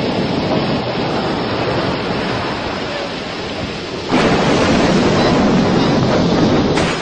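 Stormy noise of wind and rain, a dense steady rush that turns suddenly louder about four seconds in and drops back just before the end.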